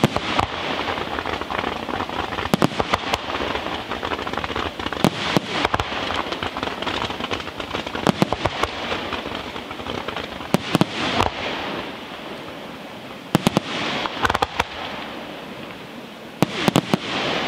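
Aerial fireworks shells bursting into glittering white stars: a dense, continuous crackle with clusters of sharp bangs every two to three seconds.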